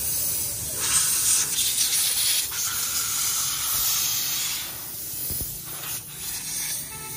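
Compressed air hissing from an air nozzle, blown at the spark plug of a Honda CD 70 motorcycle to dry it after washing so that the engine will start. One long blast of about three and a half seconds, then a few shorter, weaker puffs.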